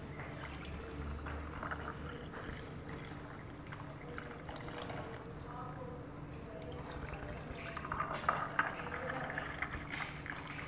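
Lemonade poured from a glass jug into two glasses over ice, filling one glass and then the other, with a louder stretch of pouring about eight seconds in.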